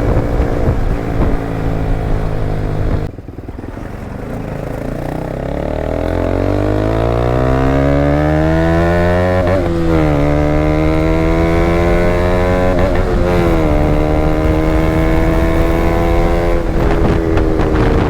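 KTM Duke 200's single-cylinder engine heard through an aftermarket Akrapovic exhaust, accelerating up through the gears. The engine note drops sharply about three seconds in, then rises steadily in pitch, with short dips at gear changes near ten and thirteen and a half seconds, then settles into a steady cruise.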